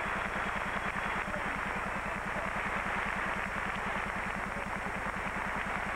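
Arena audience applauding steadily, with a low, rapidly pulsing hum underneath.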